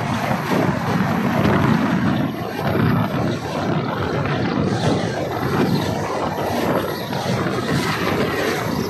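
Indian Railways passenger train passing close on the adjacent track: a loud, steady rush and rumble of coach wheels on the rails and wind, heard from another moving train.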